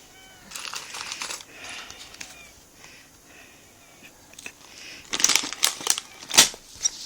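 Plastic packaging and small plastic building-set parts being handled. Crinkling rustles in the first two seconds, then a burst of sharp clicks and rattles from about five seconds in.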